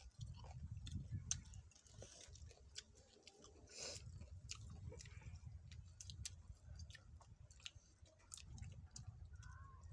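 Faint chewing of papaya salad and raw greens, with scattered sharp mouth clicks over a low rumble.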